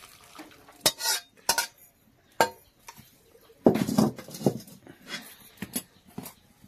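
Stainless steel ladle and bowls clinking and scraping as curry is poured and ladled from one steel bowl into another: a few sharp clinks in the first couple of seconds, then a louder clatter about four seconds in.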